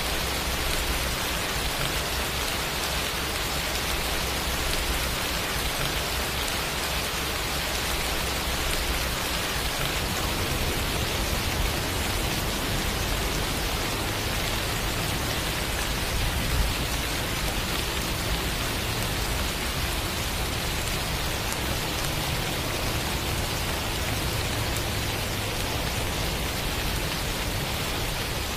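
Steady rain falling on a surface, an even, unbroken hiss.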